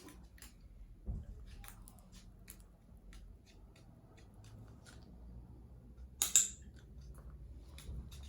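Scattered small, sharp clicks and snips of a black-headed caique's beak grabbing and working at the Beakbox's plastic lever, with one louder clack about six seconds in.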